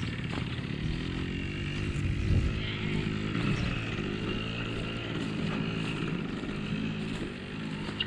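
Yamaha AG100 two-stroke farm motorbike running, its engine note rising and falling as the throttle is worked.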